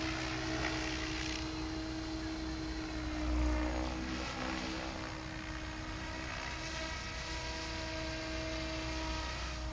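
SAB Goblin 700 electric RC helicopter flying at a distance: a steady whine from its rotor and motor, shifting slightly in pitch. A brief low rumble comes about three seconds in.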